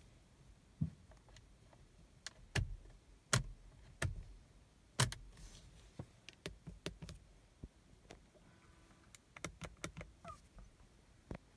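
Steering-wheel gearshift paddles clicking as they are pulled and released: a string of sharp plastic clicks at irregular intervals, the loudest in the first half.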